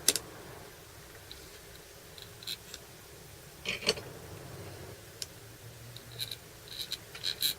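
Scattered light metallic clicks and taps of bolts being handled and fitted into handlebar riser clamps, with a quick cluster of clicks near the end.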